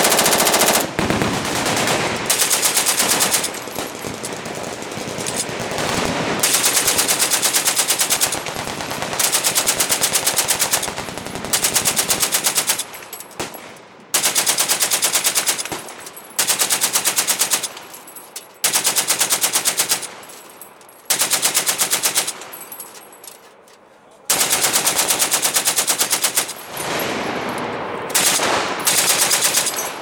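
Machine guns firing full-automatic bursts of one to two seconds each, about a dozen bursts in all, with the echo dying away between them.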